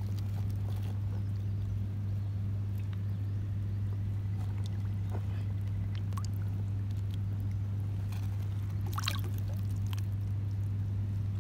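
Shallow river water trickling and lapping around a smallmouth bass held by the lip in the current, with small splashes and a brief patter of splashing about nine seconds in, all over a steady low hum.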